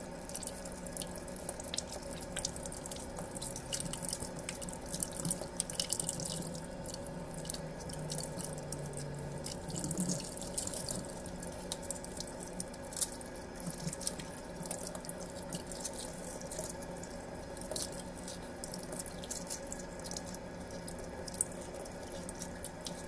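Thin stream of cold tap water running steadily into a stainless steel sink, with small scattered clicks of eggshell being peeled off a hard-boiled egg under the stream.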